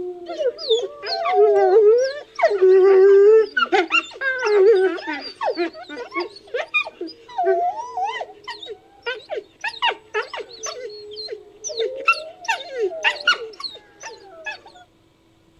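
Wolf recordings layered into a creature sound effect: several wolves howling, whining and yipping over one another, with one low howl held steadily underneath. After a few seconds the calls turn into a fast run of short yips and yelps, which stops abruptly near the end.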